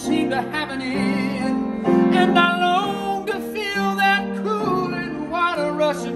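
Grand piano playing a slow accompaniment of held chords under a solo voice singing with vibrato.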